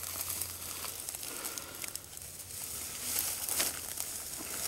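Dry brush and leaves rustling and crackling as a downed whitetail deer is moved and its head lifted, with a few short sharp crackles.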